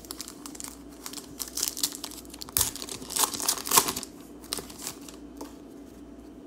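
Foil wrapper of a Panini Prizm baseball card pack being torn open and crinkled: a run of crackling rips, loudest in the middle, then a few quieter rustles and clicks as the cards are handled.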